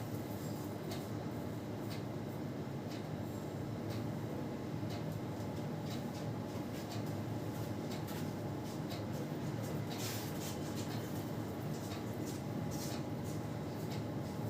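Steady low background hum with faint scattered clicks and a brief brushing rustle about ten seconds in.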